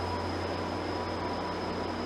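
VIA Rail passenger coaches rolling past: a steady low hum and rolling noise of wheels on rail, with faint steady high-pitched tones over it.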